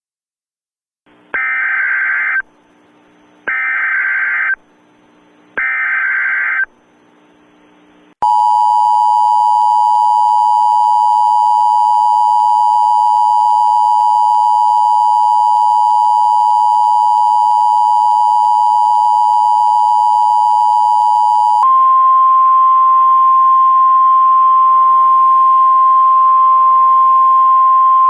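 Emergency Alert System tones for an Emergency Action Notification. First come three short warbling data bursts of the digital header, which carries the alert codes. Then the long, steady two-tone attention signal sounds, and it gives way to a single slightly higher steady tone over a hiss.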